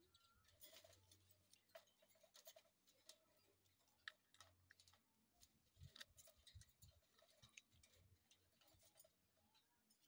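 Near silence with faint, scattered clicks and scratches: parakeets climbing about on the wire bars of their cage.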